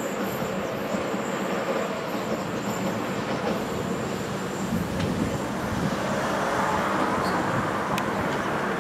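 Locomotive running light along the curved track, moving away: a steady rumble of wheels on rail, with a faint high squeal that fades out in the first few seconds.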